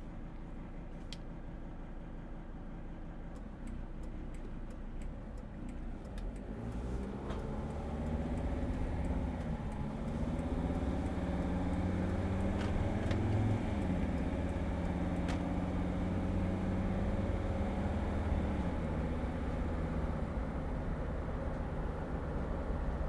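Mercedes Sprinter van driving: engine and road noise that grows louder from about seven seconds in as the van speeds up, the engine pitch rising and dropping back a few times.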